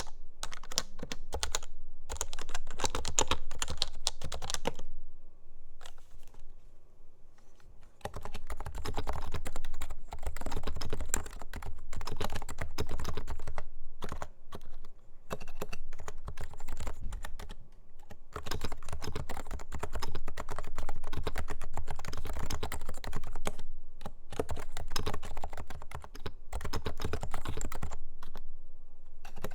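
Fast typing on Topre electrostatic-capacitive keyboards: a run of muted, rounded keystrokes on an HHKB Hybrid, a pause of about three seconds, then continued typing on a Leopold FC660C with silenced Low-Noise Topre switches.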